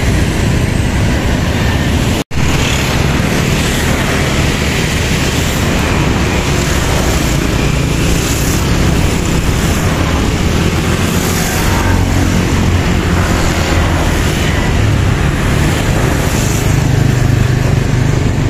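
A medium tour bus's diesel engine running loud and close, with road and tyre noise. The sound cuts out for an instant about two seconds in.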